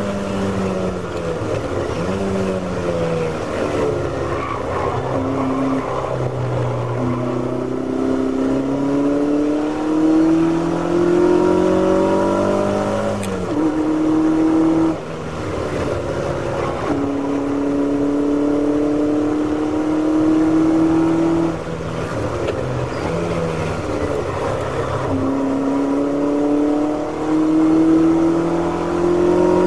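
Ferrari V8 race car engine heard from inside the car at racing speed. The revs climb steadily under acceleration, fall sharply several times as the driver lifts off and changes gear, then climb again near the end.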